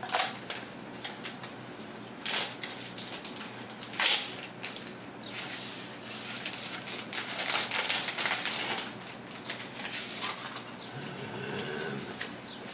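Screen-protector packaging being opened and handled, rustling and crinkling in irregular bursts.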